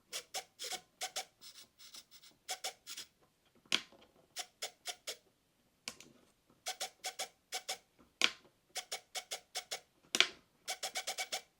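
Runs of quick small clicks, several a second, with a few louder single clicks among them: buttons or a selector being pressed on the RC helicopter's transmitter while its settings are saved.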